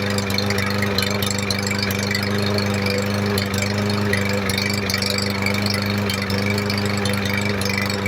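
MTD 139cc OHV single-cylinder lawn mower engine running steadily after being reassembled, its speed holding even throughout.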